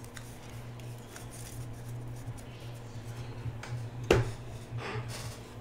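Faint handling of a stack of trading cards over a steady low hum, with one sharp knock about four seconds in.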